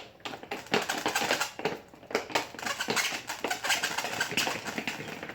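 Screwdriver backing a mounting screw out of a model car's plastic base, with a quick run of irregular small clicks, taps and scrapes.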